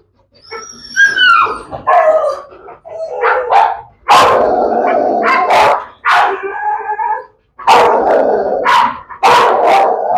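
Pit bull dog barking and whining in loud, repeated bursts, with rising-and-falling whines near the start and a long unbroken stretch of barking about four seconds in.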